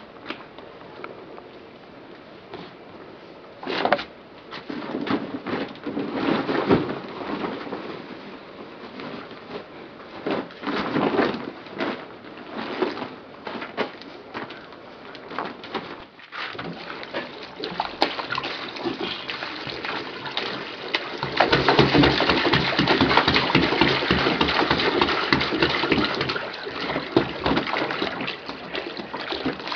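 Rustling and handling of clothes and a plastic bag, then water poured from a plastic jerrycan into a plastic basin of clothes. The pouring is a steady splashing that starts suddenly about two-thirds of the way through.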